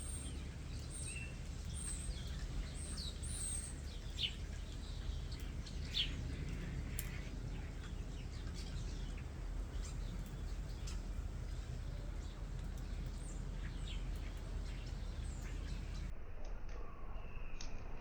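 Common starlings calling: scattered short whistles and chirps, busiest in the first several seconds and thinning out after, over a steady low background rumble.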